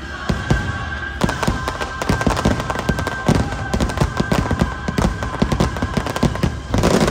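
Fireworks going off in a rapid, dense barrage of bursts and crackles from about a second in, over a held note of the show's music. Near the end it swells louder.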